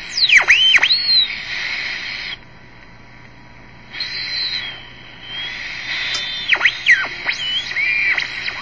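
TenTec Model 1054 regenerative shortwave receiver being tuned across a band: hiss from its speaker with whistles that swoop down and up in pitch as the tuning passes each station's carrier. The heterodyne squeals of the regenerative detector drop to a quieter hiss about two and a half seconds in, then return near the end.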